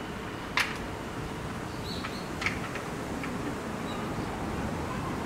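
A few sharp clicks and knocks, the loudest about half a second in and another about two and a half seconds in, over steady outdoor background noise with a few faint high chirps.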